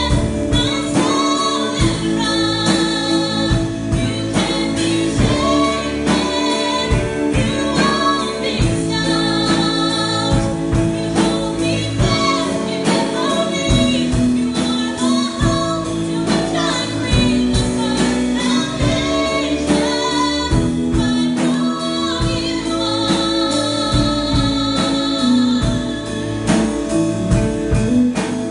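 Christian worship song: sung vocals over a full instrumental accompaniment with a steady beat.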